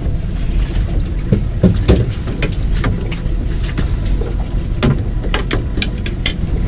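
Steady low rumble of wind and water around a small boat, with a scatter of sharp clicks and knocks from about a second in as a line is hauled aboard.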